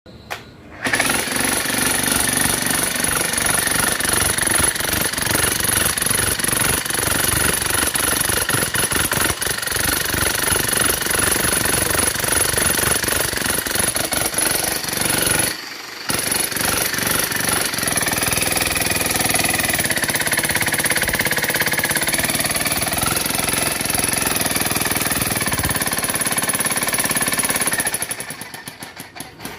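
Bosch GSH 11E electric SDS-max demolition hammer running and hammering continuously. It stops for a moment about halfway through, starts again, and runs down near the end.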